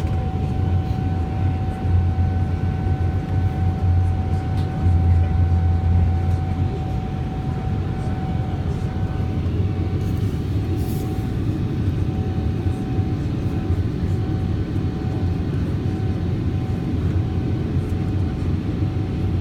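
Cabin noise of a Boeing 777-300ER, heard from inside: its GE90 engines running with a steady low rumble and an even rush of noise. A steady whine sits over it and fades out about halfway through, and the rumble eases a little about six seconds in.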